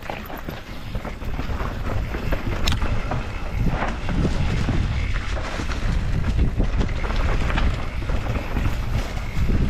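Wind buffeting the microphone as a mountain bike descends a trail at speed, with the bike rattling and knocking over rough ground. The noise builds over the first two or three seconds, then stays loud.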